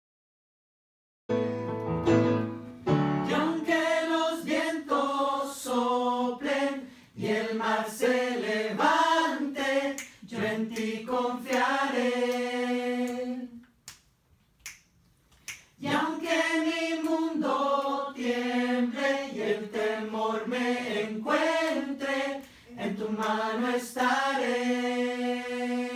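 A small group of mostly female voices singing the bridge of a worship song unaccompanied, starting about a second in. They break off for about two seconds midway, where a few sharp clicks sound, then sing on and end on a long held chord.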